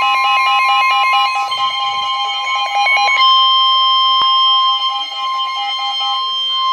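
Emergency alert warning tone for a severe thunderstorm warning. For about the first three seconds a rapid pulsing beep pattern plays over a steady shrill tone. From about three seconds in the steady tone sounds alone: the NOAA Weather Radio warning alarm tone.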